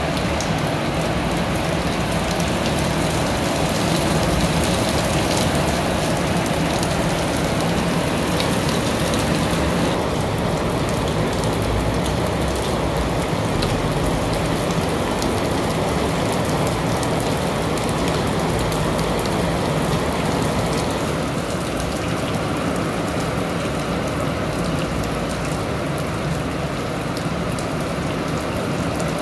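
Steady rain falling: an even hiss with many small drop ticks, becoming a little quieter about two-thirds of the way through.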